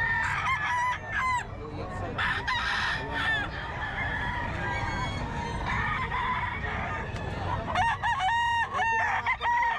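Several gamecock roosters crowing, their calls overlapping. There is a cluster of crows in the first few seconds, a quieter stretch in the middle, and more crowing near the end, over a steady low rumble.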